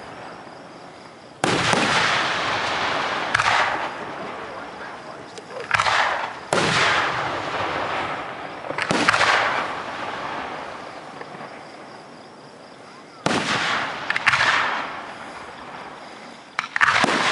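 Aerial firework shells bursting overhead: about eight sharp, loud booms a few seconds apart, each trailing off in a long fading echo.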